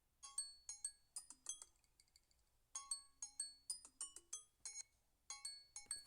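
Phone ringtone playing: a melody of quick, bright, xylophone-like notes in short runs, repeating after brief pauses.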